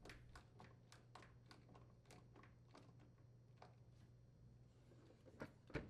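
Near silence with faint, short clicks a few times a second and two louder clicks near the end: a screwdriver driving the mounting-bracket screws into a dishwasher.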